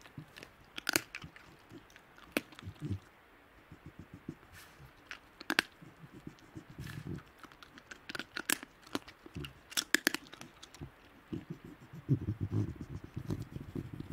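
Tasmanian devils feeding on a carcass: powerful jaws crunching and cracking bone and tearing at flesh, with sharp cracks every second or two. Low, rapidly pulsing grumbles run between the cracks and grow stronger near the end, typical of devils growling over food.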